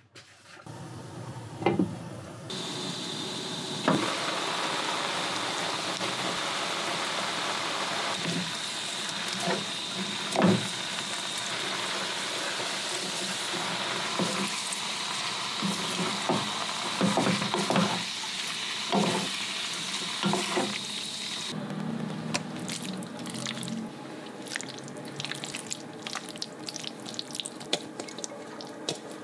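A steady hiss from a pan of bean sprouts and vegetables cooking on the hob, with a few sharp knocks of utensils against the pan. It stops abruptly about 21 seconds in, and soft wet squishing and light clicks follow as food is handled on a steel tray.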